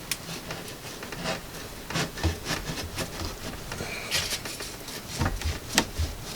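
Parts of a coated cast-iron hand-cranked grain mill being handled and tried together: scattered clicks and knocks with rubbing in between.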